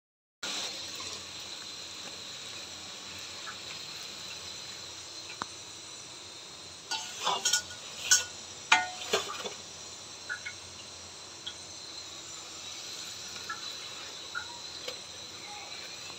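A luchi deep-frying in hot oil in a karahi, sizzling steadily. A few sharp metal clinks come around the middle.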